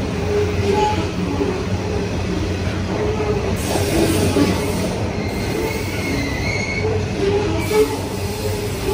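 Freight train of hopper wagons rolling past close by: a steady rumble and rattle of steel wheels on the rail, with short high squeals from the wheels in the second half and a single knock near the end.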